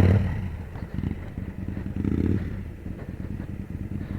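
Motorcycle engine revving in surges. It is loudest at the start, then eases off, with fresh bursts of throttle about a second and about two seconds in.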